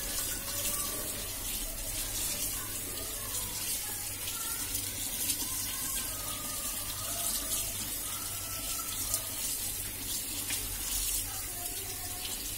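Tap water running steadily into a steel bowl of sprouted mung beans, rinsing them.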